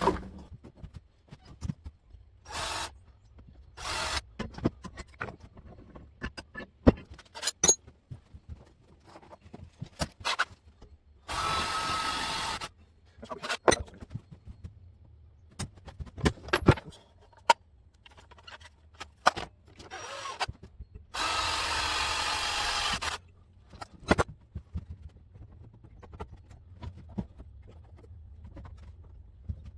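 Power drill running in short bursts while drilling holes in engine-mounting blocks, the two longest runs about two seconds each near the middle and two-thirds of the way through, with clicks and knocks of handling in between.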